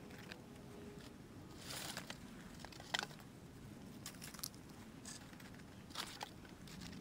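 Dead wooden branches knocking and scraping together as they are handled and laid onto a stick frame, with rustling and crackling of twigs. A sharp knock about three seconds in is the loudest; more clicks follow, and another knock comes about six seconds in.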